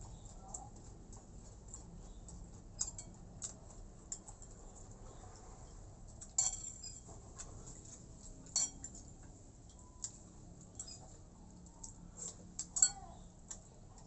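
A person eating close to the microphone: chewing and mouth smacks with scattered small clicks and clinks of tableware. A few sharper, louder clicks stand out about halfway through, again a couple of seconds later, and near the end.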